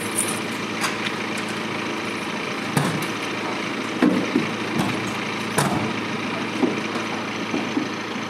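A Mercedes-Benz Sprinter van's engine idling steadily, with several knocks and thuds from its doors as people climb in.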